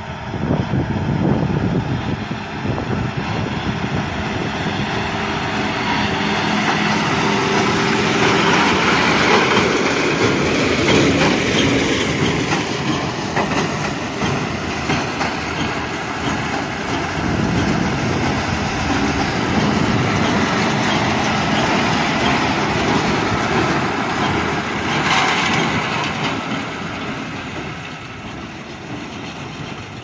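John Deere 6215R tractor's six-cylinder diesel running under load while pulling a John Deere 1433 square baler, with the baler working. It grows louder over the first several seconds as the outfit comes close, and fades near the end as it moves away.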